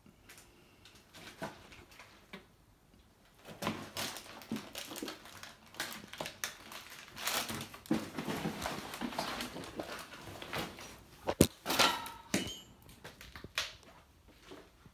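Footsteps and scuffing over a floor littered with broken ceiling tiles and junk, with scattered knocks; the two loudest are sharp knocks close together near the end.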